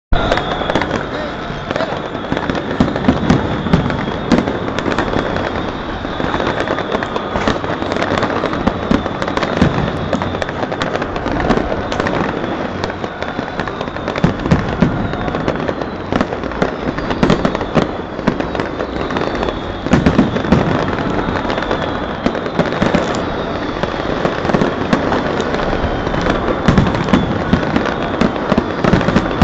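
Aerial fireworks going off continuously: a dense run of bangs and crackles close together, with no break.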